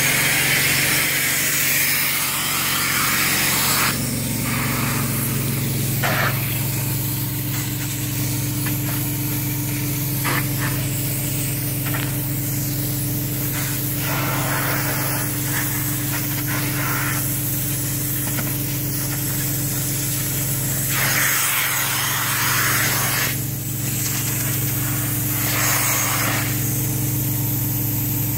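Truck-mounted upholstery cleaning unit running with a steady low hum through the hose, while the hand wand sprays and vacuums water out of microfiber fabric. The wand's rushing hiss swells and fades with each pass, every few seconds.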